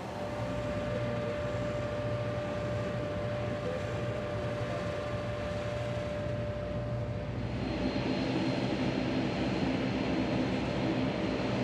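Propeller aircraft engine running steadily in flight, the Yak-50's radial engine. About two-thirds through, the sound shifts and grows a little louder, fuller in the low end.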